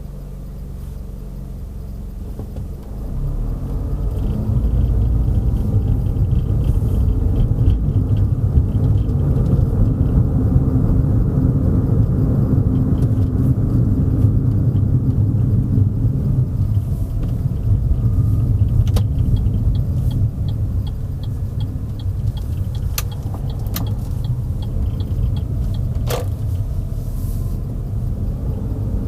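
Road and engine rumble of a car heard from inside while driving, growing louder about three seconds in as the car picks up speed. In the second half a regular light ticking runs for several seconds, with a few sharp clicks.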